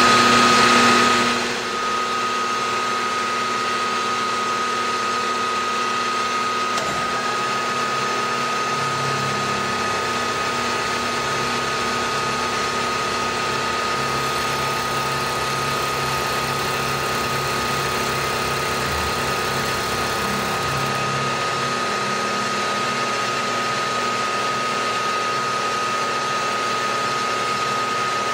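Milling machine spindle running steadily with a constant high whine while an insert face mill takes a pass along the side of a block clamped in a vise, squaring it up. Slightly louder for the first second or two.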